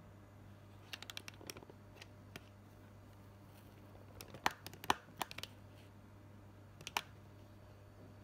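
Light crackling clicks in a few short clusters: a handful about a second in, a louder run around the middle, and one more near the end, over a faint steady low hum.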